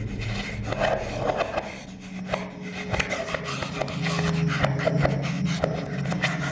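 A man breathing hard and straining, with rubbing and scuffling noises of cloth and movement, over a low droning film score.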